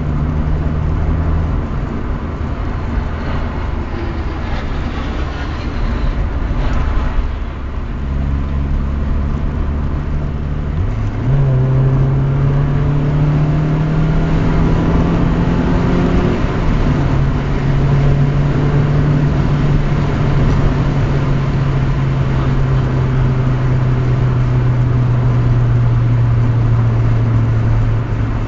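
Car engine and road noise heard from inside the car while driving along a country lane. The engine note changes step by step with gear changes, climbs steadily for several seconds in the middle, then drops and holds steady.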